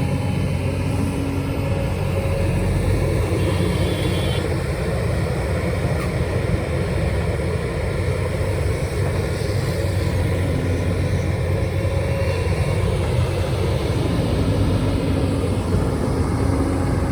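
Diesel engine of a heavy digging machine running steadily, a low, even engine hum.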